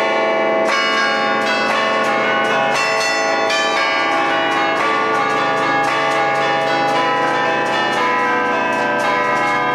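A concert of twelve church bells played from a wooden keyboard (tastiera) in the Bergamo–Brescia allegrezza style: the clappers strike in quick succession, several strokes a second, playing a festive band-style tune while the bell tones ring on over one another.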